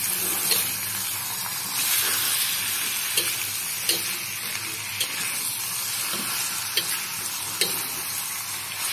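Raw chicken pieces sizzling as they are stir-fried in a wok, with a spatula scraping and tapping against the pan about once a second.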